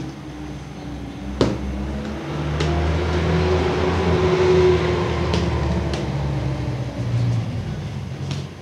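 A motor running with a steady low hum that swells to its loudest about four to five seconds in and then eases off, with several sharp clicks along the way.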